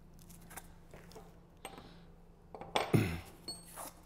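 Handling noise of a hand-operated dispensing gun and a plastic coaxial mortar cartridge: small clicks, then a loud clunk and clatter about three seconds in as the cartridge is fitted into the gun, followed by a few lighter rattles.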